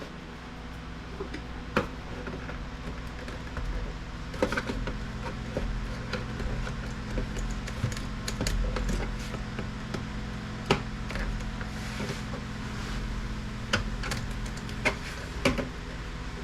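Scattered clicks and knocks of a monitor's plastic and metal parts being handled and pried at during disassembly, over a steady low hum.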